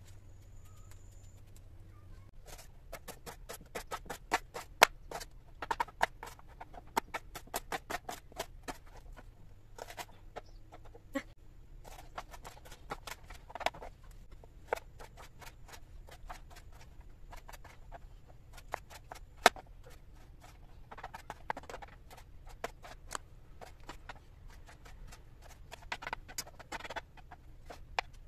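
Kitchen knife striking a plastic chopping board as vegetables are cut, in bursts of quick sharp taps with short pauses between them.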